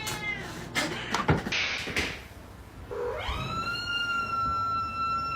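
A pet's long drawn-out call, rising at first and then held at one steady pitch for over two seconds, in the second half. It is preceded by a short falling cry and a few knocks.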